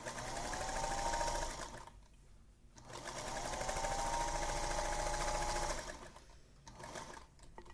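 Electric sewing machine stitching quilt border strips in two runs. Each run starts with the motor whine climbing in pitch and then holding steady. The first run stops just under two seconds in; the second starts about a second later and lasts about three seconds.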